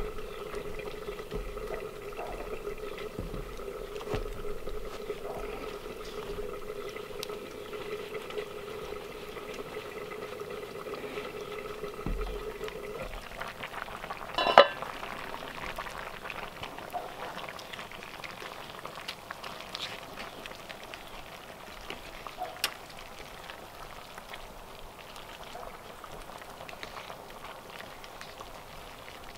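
Liquid bubbling in a cooking pot, with a steady tone that stops about halfway and a single sharp knock just after.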